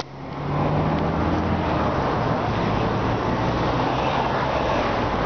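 Road traffic: a motor vehicle running past on the street, a steady engine hum over tyre and road noise.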